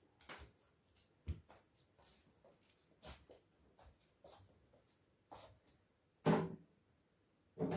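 A person walking slowly on crutches: crutch tips and steps tapping on the floor in irregular light knocks, with two louder knocks near the end.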